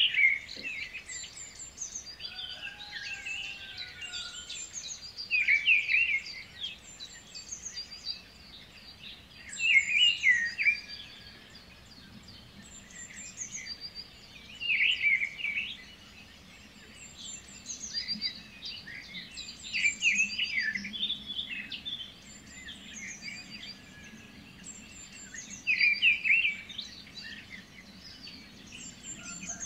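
Birdsong: several birds chirping and trilling together, with a louder cluster of calls every four to six seconds.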